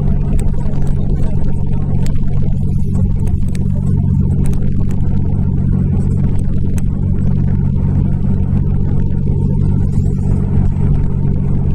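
Cabin of a SOR CN12 intercity bus cruising at steady speed: a constant engine drone with tyre and road noise, and a few faint clicks and rattles.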